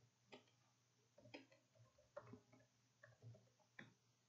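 Faint, irregular clicks of keys being typed on a computer keyboard, a dozen or so scattered taps.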